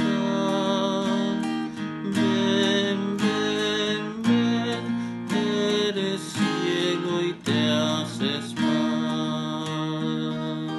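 Acoustic guitar with a capo playing strummed chords, a fresh stroke about once a second with the chords ringing between them.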